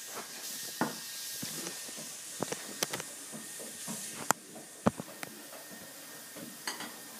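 Handling noise on a phone's microphone as it is moved about: a rubbing hiss, with scattered clicks and taps.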